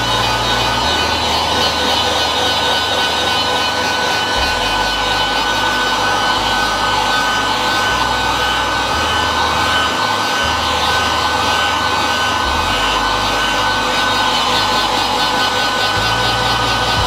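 Handheld heat gun running steadily, its fan blowing hot air with a constant hiss and a steady high whine, curing the hot-melt powder on DTF transfer film.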